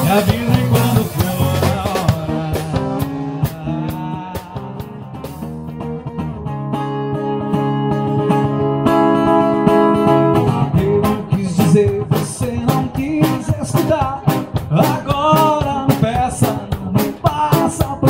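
Live guitar and drum kit duo playing a rock song instrumentally. For the first several seconds the guitar holds chords with only light drumming. About ten seconds in, the drums come back in with busy cymbal and snare hits under a sliding guitar melody.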